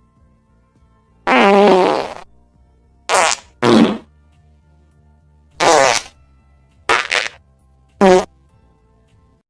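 A string of fart sounds, about seven short blasts of under a second each, separated by brief pauses. Most have a wobbling pitch, and two near the end come close together.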